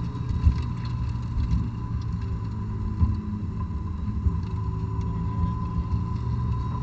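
2006 Honda S2000's 2.2-litre four-cylinder engine, stock exhaust, running at low revs around 3,000–3,600 rpm, heard from inside the cabin along with road noise. A thin steady whine runs alongside, and there are a couple of brief thumps, one shortly after the start and one about three seconds in.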